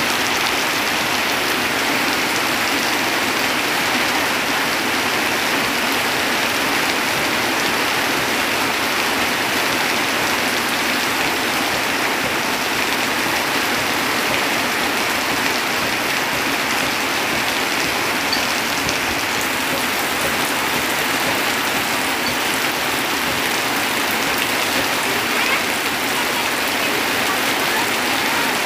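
Heavy rain falling steadily on a corrugated tin roof, with runoff pouring off the roof edge.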